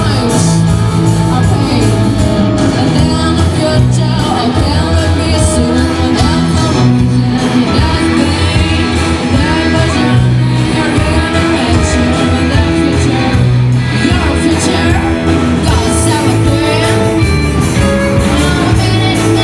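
Live rock band playing in a large hall: electric guitars and keyboard with sung lead vocals, loud and steady throughout.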